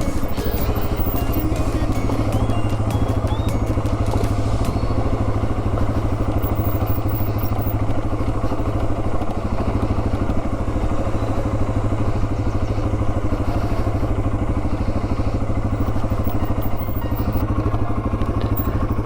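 Yamaha TW200's single-cylinder engine running at a steady, unchanging pitch, with a few light clicks in the first few seconds.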